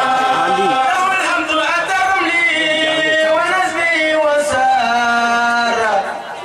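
A man singing a religious chant through a microphone and PA, in long held notes that bend and slide between pitches.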